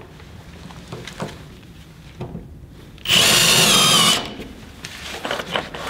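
Kobalt 24-volt cordless drill pre-drilling a pilot hole through a steel joist hanger into a wooden ledger board. It runs for about a second with a high, slightly wavering motor whine, after a few light knocks of the hanger and tools being handled.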